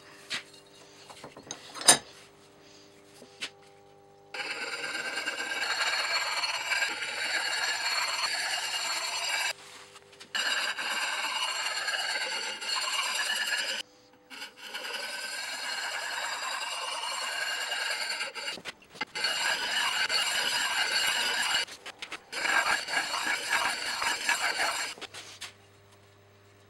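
Keesteel broad axe's steel edge being sharpened: steady abrasive scraping strokes on the blade, in five stretches of a few seconds each that start and stop abruptly. A sharp click comes about two seconds in.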